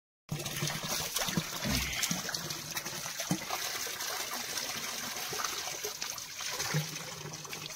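Spring water running steadily from a black plastic pipe, splashing onto cupped hands and into a concrete trough below.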